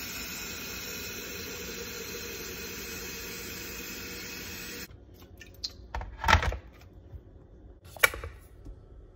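Glass electric kettle boiling hard, a steady rushing hiss that cuts off abruptly about five seconds in. Then a heavy knock and, near the end, a sharp click as the kettle is handled.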